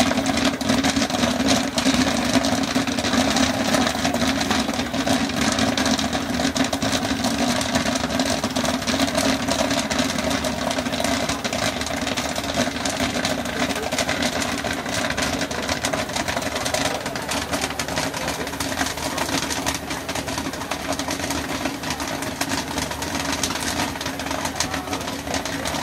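Cretors 60 oz gas popcorn machine running with a steady mechanical hum, scattered with light pops and crackles as its tipped kettle dumps a freshly popped batch.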